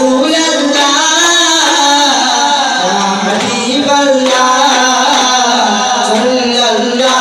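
Duff muttu: a devotional song sung to a melody, with daff frame drums beaten along by the performers.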